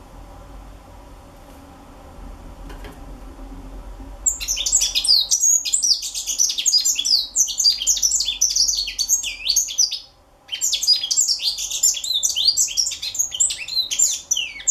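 Young African citril singing a rapid, high, twittering song of quick varied notes. The song starts after about four quiet seconds and breaks off briefly about ten seconds in before going on.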